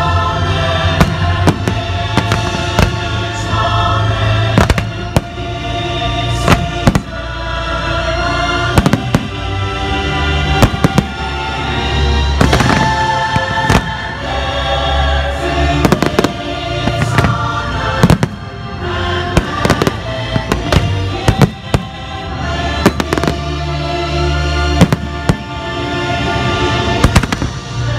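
Display fireworks shells bursting in rapid succession, dozens of sharp bangs over loud show music.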